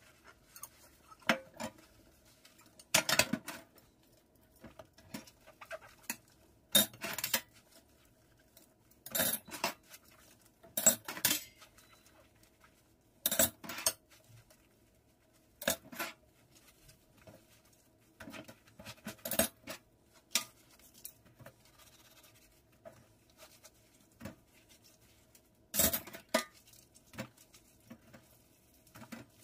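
Dishes being hand-washed in a stainless steel sink: ceramic plates, mugs and metal cutlery clink and clatter against each other and the sink in irregular knocks every couple of seconds, with softer sponge scrubbing between them.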